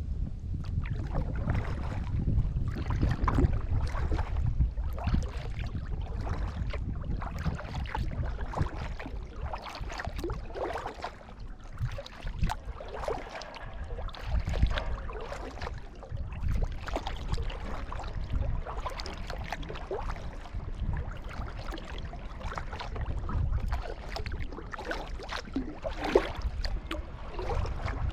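Kayak paddle blades dipping and pulling through the water, with irregular splashes and swishes and water lapping at the hull, over a steady low rumble.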